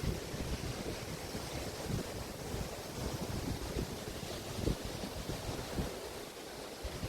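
Waves washing onto a beach on the Río de la Plata estuary, a steady hiss, with wind buffeting the microphone in irregular low gusts.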